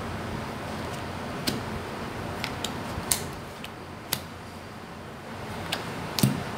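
Cigano (Lenormand) cards being drawn one at a time from a deck and laid down on a cloth-covered table: about eight short, sharp card snaps and flicks, spaced unevenly, over a steady low hiss.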